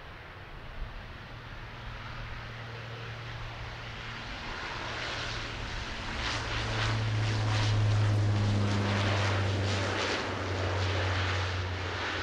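Dash 8-400 twin turboprop departing: a steady low propeller drone that builds, is loudest about eight seconds in, then eases slightly.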